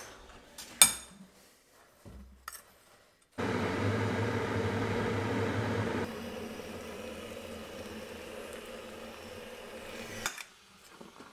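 Hot water poured from a stainless-steel kettle onto dry oats in a glass bowl: a steady splashing hiss with a low hum underneath. It is loud for the first couple of seconds, then carries on more softly and stops with a click. A single sharp click comes about a second in, before the pour.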